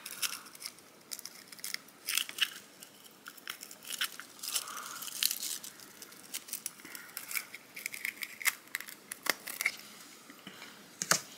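A small clear plastic case being handled and its lid pressed back on: scattered sharp plastic clicks and crinkles.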